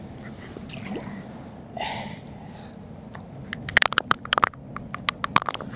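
Shallow water sloshing and splashing close by, with a small splash about two seconds in and two short clusters of sharp, crackling splashes near the end.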